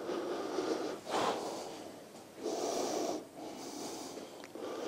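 A man breathing audibly close to the microphone, mixed with the rustle of his movement, in several short noisy bursts.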